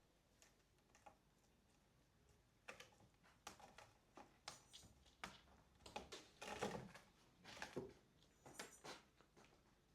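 Faint scattered taps, scratches and rustles of kittens moving about and playing with their toys, coming in quick clusters from about three seconds in.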